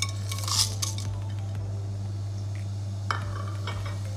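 Whole spices tipped from a glass bowl into a steel pressure cooker, clinking and rattling against the metal, with a louder clatter about half a second in and a few more clicks about three seconds in.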